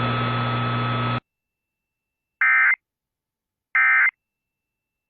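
Steady hiss and hum of the alert broadcast's audio, cutting off abruptly about a second in, then the Emergency Alert System end-of-message signal: short buzzy digital data bursts about a second and a half apart, two of them, with a third beginning at the very end.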